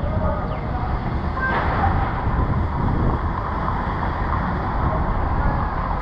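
City street ambience: a steady low rumble of traffic.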